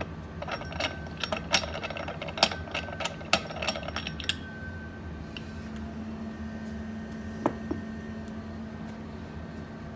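Beckman Coulter centrifuge rotor lid being twisted loose by its knob: quick irregular metallic clicking and rattling for about four seconds. Then a steady low hum with a single click near the end.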